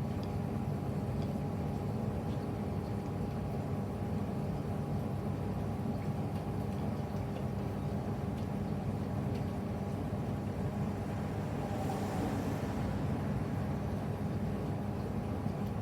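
SANYO drum-type coin-laundry washing machine running its wash (agitation) cycle: a steady motor hum with a thin held tone and faint scattered ticks, plus a short hiss about twelve seconds in.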